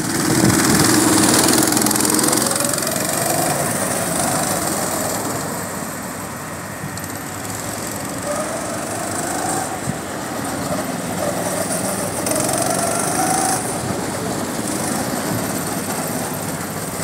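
Several go-kart engines running as the karts race around the track, with an engine note rising twice as a kart accelerates.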